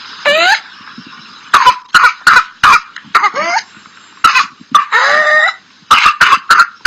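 A child's whooping cough (pertussis) fit: bouts of short, sharp coughs broken several times by high, drawn-out whooping breaths in. The whoop is the sharp inhalation after a coughing bout that marks pertussis.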